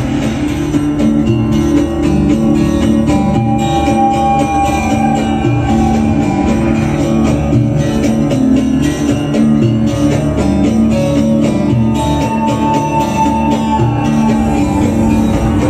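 Loud instrumental music with sustained notes over a steady rhythmic beat.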